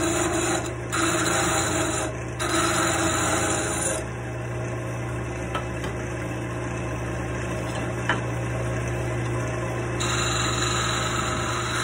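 Wood lathe running steadily, spinning a wooden dowel, with a hand-held turning chisel cutting the wood in a loud hiss for the first few seconds. The cutting stops about four seconds in, leaving the lathe's hum and a couple of small clicks, and starts again near the end.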